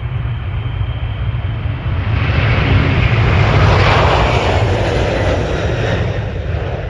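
Twin turbofan engines of a KC-46 Pegasus tanker running at takeoff thrust as it rolls down the runway and lifts off. The rushing jet noise grows louder about two seconds in, is loudest around liftoff, and eases a little as the tanker climbs away.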